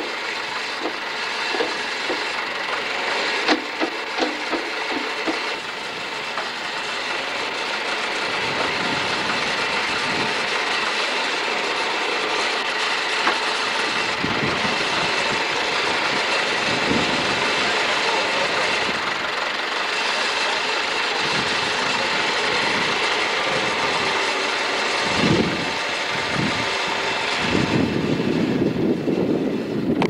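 Tractor backhoe's engine running steadily while it digs. There are scattered clanks in the first few seconds and a few dull thumps near the end.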